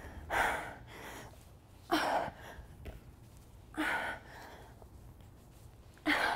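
A woman breathing hard from exertion during ab exercise reps: four loud gasping exhalations, about two seconds apart.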